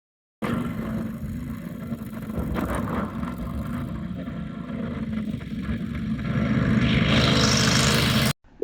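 An engine of tree-removal machinery running steadily. It comes in and cuts off abruptly, and gets louder and harsher about seven seconds in, as if put under load.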